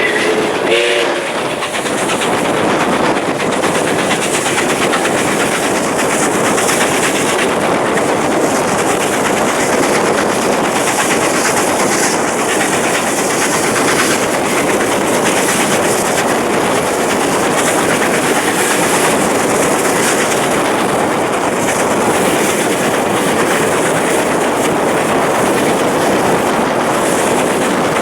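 Steam train running at speed: a steady rush of wheel and rail noise with clickety-clack over the rail joints, after a short toot of the locomotive's chime whistle about a second in.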